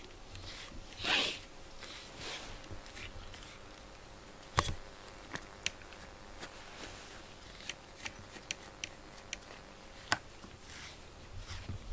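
Pink rubber grooming brush stroked through a cat's fur: a run of short rasping swishes, the loudest about a second in, with a couple of sharp clicks, one about four and a half seconds in and one near the end.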